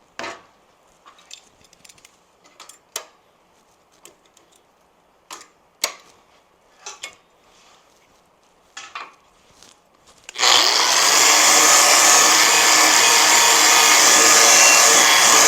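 Scattered clicks and knocks of tools and steel being handled, then about ten seconds in an angle grinder starts and grinds steel, a loud steady hiss over a faint whine, taking mill scale off the metal.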